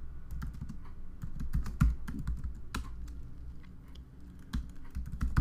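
Typing on a computer keyboard: irregular keystrokes, with one louder key press a little before two seconds in.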